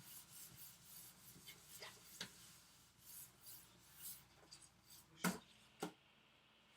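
Faint rubbing and handling noises with scattered light clicks, and two sharper knocks about five and six seconds in.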